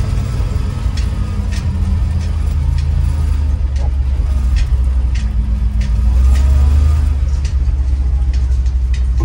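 Ford F600 truck engine running under way, heard from inside the cab: a low steady drone that rises in pitch and gets louder for a moment about six seconds in, with scattered light clicks and rattles.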